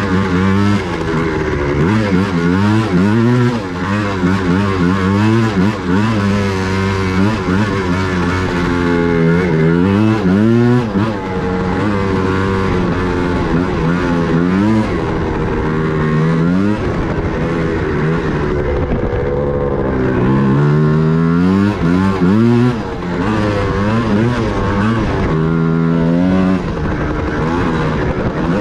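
1985 Yamaha Tri-Z three-wheeler's 250 cc two-stroke single-cylinder engine being ridden hard. Its pitch climbs under throttle and drops back, again and again.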